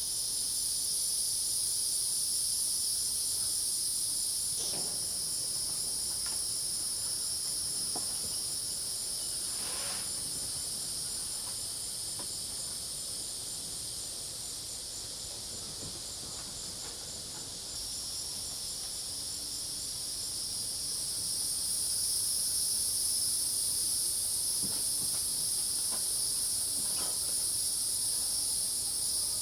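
Insect chorus of crickets and cicadas: a steady, high-pitched drone with a fast, even pulsing trill running through it. The chorus dips slightly about halfway through and swells again a few seconds later.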